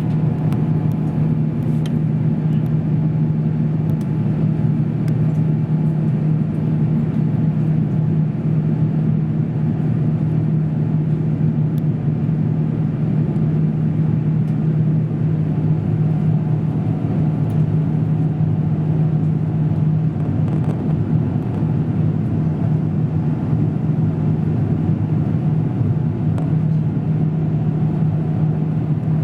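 Airbus A350's Rolls-Royce Trent XWB engines heard from inside the cabin: a steady, even drone with a low hum, unchanged throughout.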